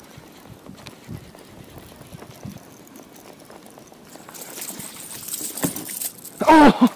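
A hooked bass thrashing and splashing at the water's surface beside a kayak, the splashing building over the last few seconds. Near the end, a short loud wordless shout from the angler.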